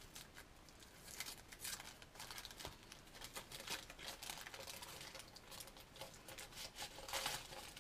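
Faint rustling and crinkling of tissue paper as a small wrapped gift is unwrapped by hand, in short irregular rustles that grow a little louder near the end.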